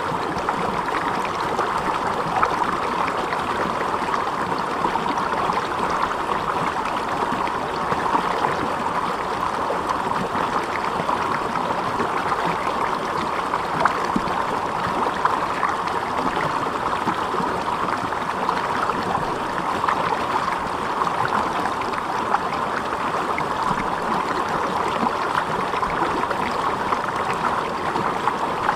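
Water flowing steadily, a continuous rushing with fine trickling and splashing that does not change.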